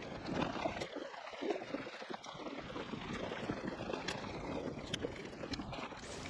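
Wind blowing across the microphone on a fishing boat, with a few light clicks in the second half.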